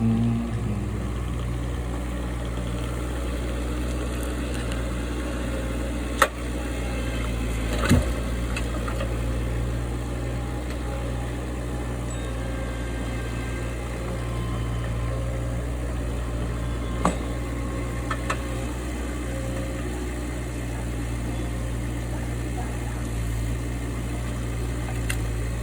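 Engine of the machinery loading the oak logs running steadily, with a few sharp knocks: one about six seconds in, a louder one about eight seconds in, and two more later.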